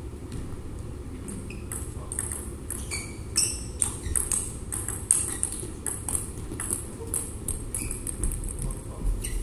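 Table tennis rally: the ball clicking off the rackets and the table in a quick, irregular run of sharp knocks, starting about two seconds in and stopping shortly before the end, over a steady low hum.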